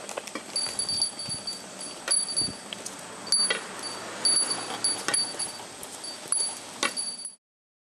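A small pilgrim's bell jingling again and again, about once a second, as the pilgrim walks, with light knocks in between. The sound cuts off suddenly near the end.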